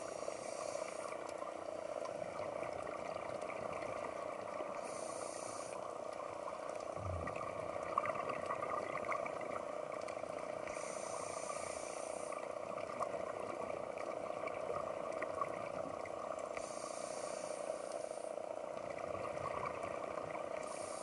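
Underwater ambience picked up by a camera: a steady drone with light crackle. A hiss comes about every five to six seconds, the rhythm of a scuba diver breathing through a regulator.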